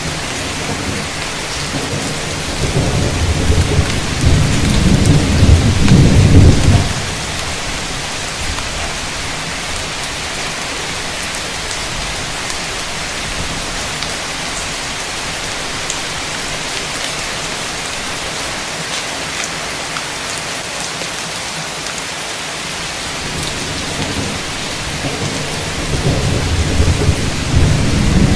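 Heavy rain pouring steadily, with two long rolls of deep thunder: one swells over the first few seconds and breaks off abruptly about seven seconds in, and another builds near the end.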